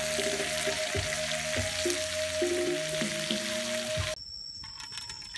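Snails frying in their shells on a hot stone slab, a steady sizzle with music playing over it. About four seconds in the sizzle cuts off to a quieter sound.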